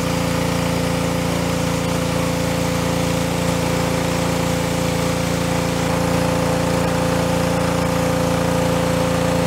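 Ryobi 3100 PSI gas pressure washer's Honda GCV170 single-cylinder engine running steadily under load, pretty loud but deeper rather than pitchy, with the steady hiss of the water jet from the wand's 25-degree tip striking foam floor tiles.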